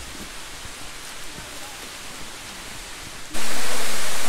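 Stream water rushing down a bare granite slab: a loud, steady rush that comes in abruptly about three seconds in, after a quieter steady hiss with faint distant voices.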